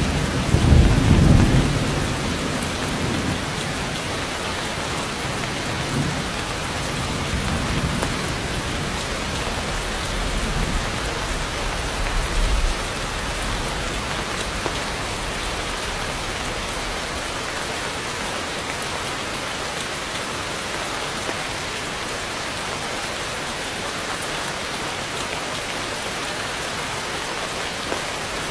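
Heavy rain pouring steadily on forest foliage, with a deep rumble of thunder about a second in and a fainter rumble around halfway.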